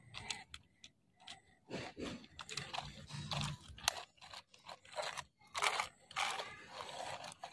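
Loose gravel crunching and scraping as a plastic toy excavator bucket is pushed by hand into the stones, in short irregular crunches that come thicker from about two seconds in.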